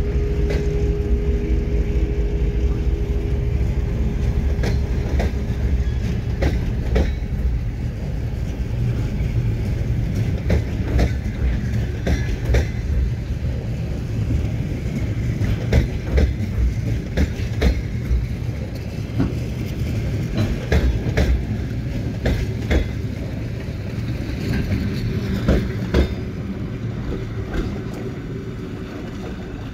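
Coaches of a departing passenger train rolling past, their wheels clicking over rail joints in an irregular clickety-clack over a steady low rumble. The sound fades near the end as the last coach pulls away.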